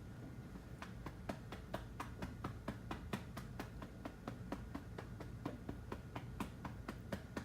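Quick, light pats on a baby's back, about five a second in a steady run, to bring up a burp.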